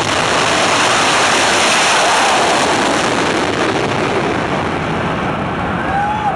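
Jet engines of two drag cars at full power, launching and running down the strip side by side: a loud, even jet roar that fades in its higher range near the end as the cars pull away.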